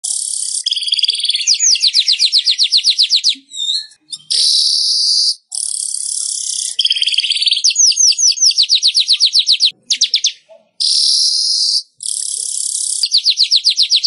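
A manyar (weaver bird) singing: loud, high-pitched phrases of hissing, wheezy chatter alternating with fast rattling trills of repeated notes, about eight a second, with short pauses between phrases.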